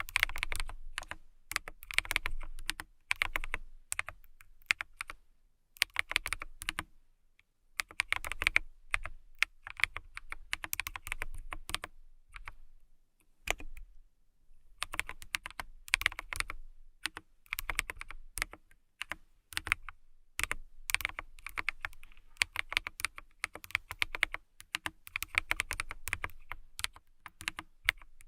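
Fingernails tapping rapidly on a hard surface: quick clicking flurries, several taps a second, broken by short pauses.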